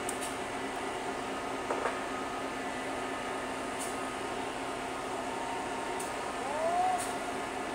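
EMD GP38 diesel-electric locomotive with its 16-cylinder two-stroke engine running at a low, steady hum. A short knock comes about two seconds in, and a brief squeal rises and falls near the end.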